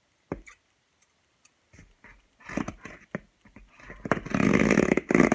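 Scissors slitting the packing tape on a cardboard shipping box: light taps and handling clicks, then a loud ripping scrape near the end that comes in two pushes, the first about a second long.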